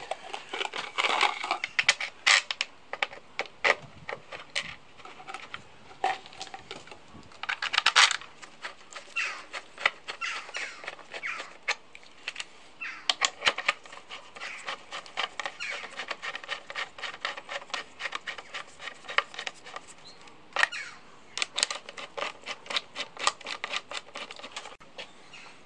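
Small metal clicks, taps and rattles of screws and hand tools being worked on an outboard motor's casing, coming in irregular clusters of sharp ticks.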